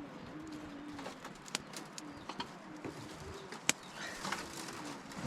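Pigeons cooing in a string of low calls, with scattered sharp clicks.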